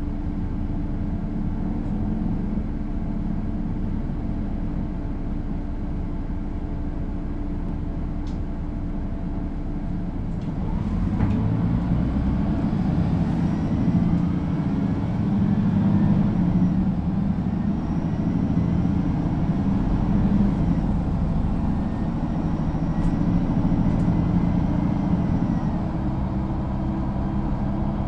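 Mercedes-Benz Citaro O530 G II articulated bus's six-cylinder diesel idling at a standstill, a steady low running. About ten seconds in it grows louder and fuller, with faint whines gliding up and down above it.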